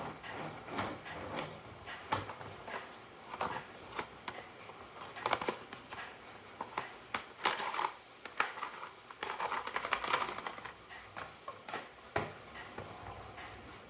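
Marbles rolling and clattering down a wooden marble run: an irregular series of light clicks and knocks.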